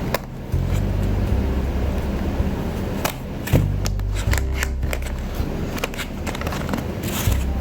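A cardboard box and its sealing tape being cut open with a knife and handled: scattered scrapes, rustles and clicks, bunched in the middle and again near the end, over a steady low hum.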